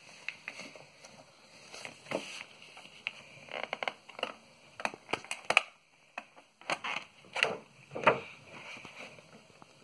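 Hands opening and handling a cardboard-and-plastic origami craft kit: irregular rustling, crinkling and small clicks of card, plastic and paper.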